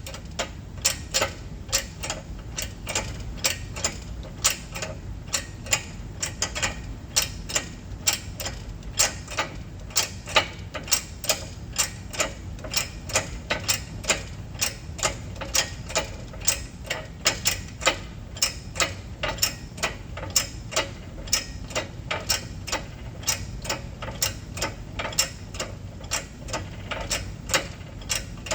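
Shop press being worked to push a rear control-arm bushing onto its shaft: a steady run of sharp mechanical clicks, about two or three a second, as pressure is added a little at a time.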